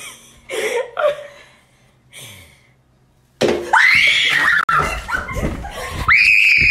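A person shrieking in alarm, two long high-pitched cries a couple of seconds apart, with rough handling noise as the camera is jostled; before them a few brief voice sounds and then near quiet.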